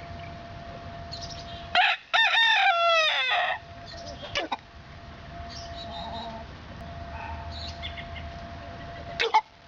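A hen hiccuping: short sharp squeaks about two seconds in, again halfway through and near the end. Right after the first comes one crow of about a second and a half that falls in pitch at its end. A faint steady hum runs underneath.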